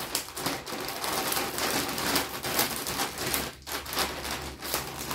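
Clear plastic vacuum storage bag crinkling and crackling, with the small clicks of its zip seal being pressed shut by hand.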